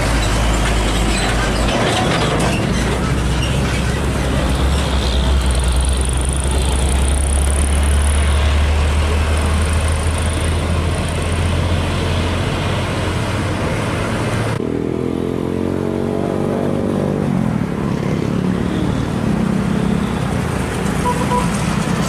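Heavy diesel container trucks driving past in road traffic: a deep, steady engine rumble with tyre and traffic noise. About two-thirds of the way through the sound cuts abruptly to another truck, whose engine note climbs for a few seconds as it pulls away.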